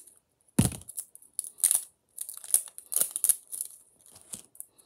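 Plastic wrapping on a small kinetic sand tub being cut with scissors and torn away, crinkling in irregular crackles. A single heavy knock about half a second in.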